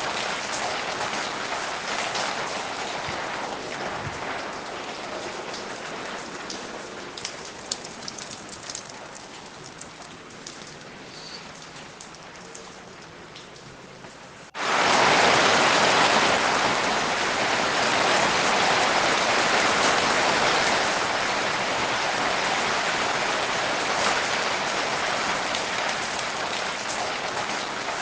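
Steady rain falling, with scattered individual drop hits, slowly easing off. About halfway through it jumps abruptly to much louder, heavier rain.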